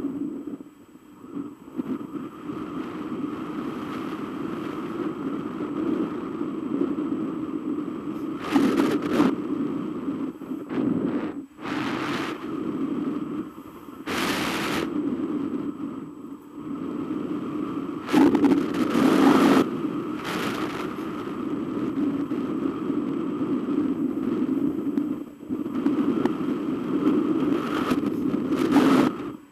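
Wind rushing over a hang glider's camera microphone in flight: a steady rush broken several times by louder gusts of buffeting.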